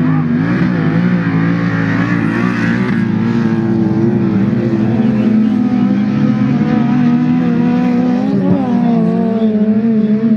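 Several autocross touring cars' engines running at high revs on a dirt track, a loud continuous drone that rises and falls in pitch as the drivers lift and accelerate through the corner.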